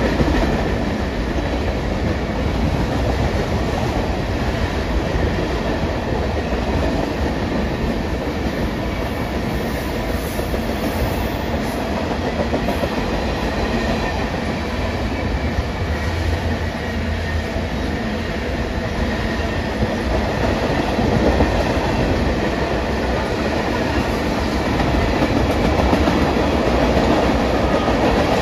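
BNSF freight train's tank cars and autorack rolling past: a steady rumble of steel wheels on rail, with no horn or engine standing out.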